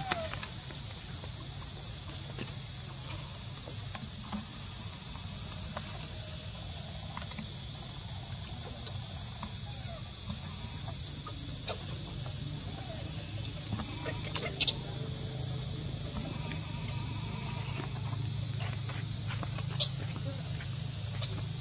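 Steady, loud, high-pitched drone of insects. A low hum sits underneath, and there are a few faint short chirps and clicks.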